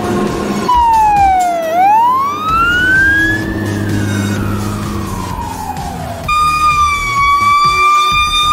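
Fire apparatus siren wailing, sweeping down, up and slowly down again in pitch. About six seconds in it changes abruptly to a siren holding a steady high tone, with a low engine rumble underneath.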